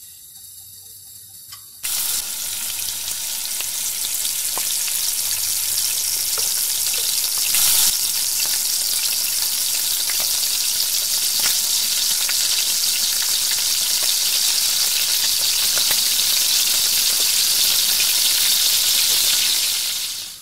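Besan-battered batata vadas deep-frying in hot oil in a kadai: a loud sizzle starts suddenly about two seconds in and carries on as a steady hiss, swelling briefly about eight seconds in.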